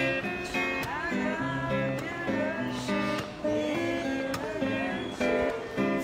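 Acoustic guitar strumming chords in a steady rhythm, an instrumental passage of a song.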